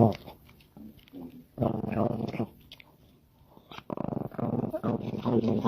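A dog growling and grumbling in drawn-out vocal bouts: a brief one at the start, one near the middle, and a longer one near the end.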